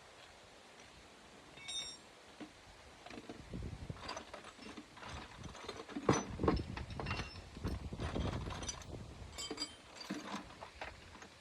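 Hand tools and metal parts clinking and knocking in irregular bursts during work on a car engine, with a couple of short ringing metallic clinks, one about two seconds in and one near the end.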